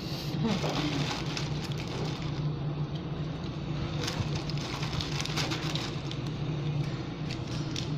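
Clear plastic bag crinkling and rustling as it is handled, thickest a little past the middle, over a steady low hum.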